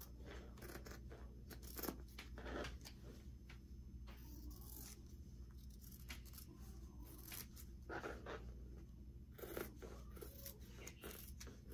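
Fabric shears snipping through two layers of folded cotton fabric around a pinned cardstock pattern: faint, irregular crisp cuts, several in a row.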